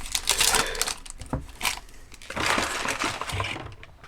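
Foil wrapper of a trading-card pack being torn open and crinkled, in two main bouts of rustling with small clicks.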